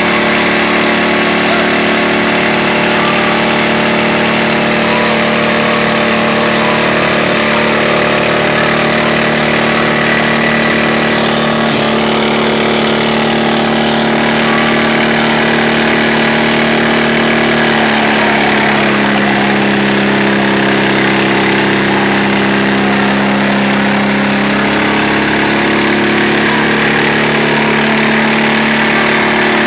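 Engines of two riding lawn mowers running hard together, chained back to back and pulling against each other in a tug-of-war. The engine notes hold steady, then shift in pitch about two-thirds of the way through and waver after that.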